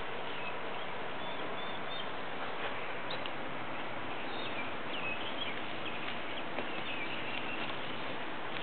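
Steady background hiss with faint, high bird chirps now and then, and a few light ticks.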